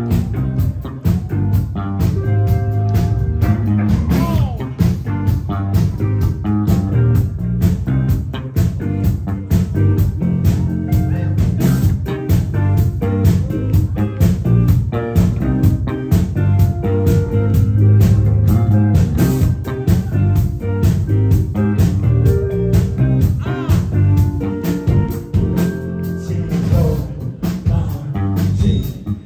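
Live rock band playing with guitar to the fore over bass and drums, keeping a steady beat; the guitar bends a note about four seconds in.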